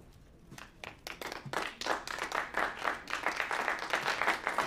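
A group of people applauding: a few scattered claps about half a second in, quickly swelling into steady applause.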